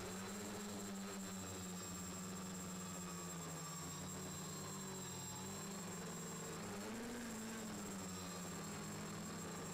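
X550 quadcopter's four Turnigy D2830 1000KV brushless motors and propellers humming in flight, recorded from the drone itself. The pitch wavers as the throttle changes, with a brief rise about seven seconds in.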